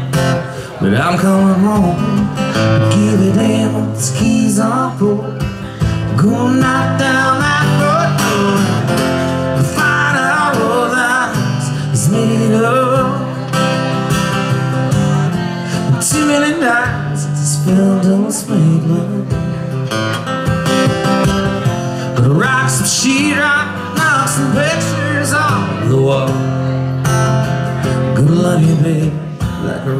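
Acoustic guitar strummed with a man singing over it, live music amplified through a small PA.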